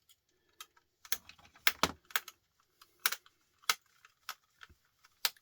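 Irregular small clicks and taps of a precision screwdriver and its bits being handled and tried against tiny screws in a plastic electronics casing.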